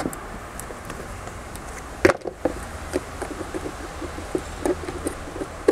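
Light clicks and knocks of hard plastic being handled: a 3D-printed part set in a plastic storage tub, with one sharper knock about two seconds in.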